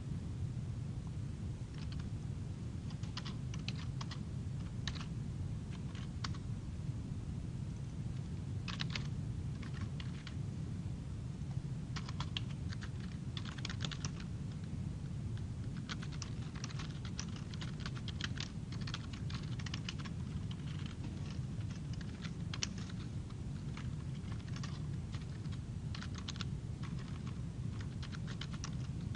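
Computer keyboard being typed on in irregular runs of keystrokes with short pauses between, over a steady low hum.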